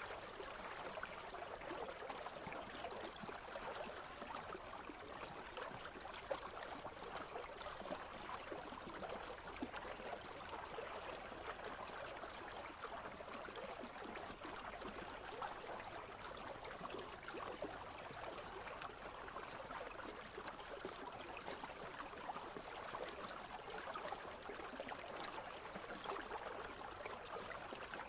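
Shallow country stream babbling and trickling over stones in a steady, even flow.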